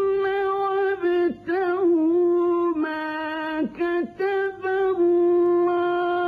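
A male qari's voice in melodic Quran recitation with tajweed. He chants in a high voice, holding long ornamented notes that slide between pitches, with a few short breaks for breath.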